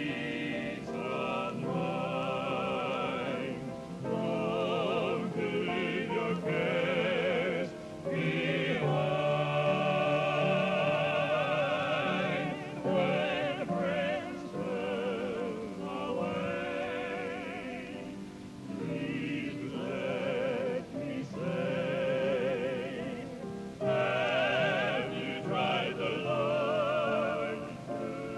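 Gospel song sung in a trained, operatic style, with wide vibrato on long held notes, in phrases broken by short pauses.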